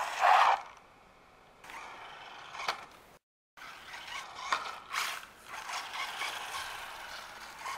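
WLToys A959 electric RC buggy driving on asphalt: its motor and gear whir swells loudest as it passes close by right at the start, then comes back after a short break about three seconds in as whirring and clicking from the drivetrain and tyres.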